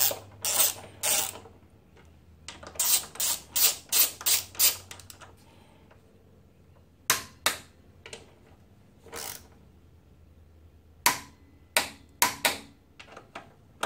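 Torque wrench ratcheting in short bursts of rapid clicks, with a few single sharp clicks between, as the brake caliper bolts are tightened down to 39 newton metres.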